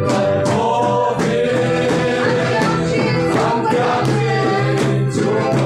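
A congregation sings a loud worship song together over a steady rhythmic beat, with instruments accompanying.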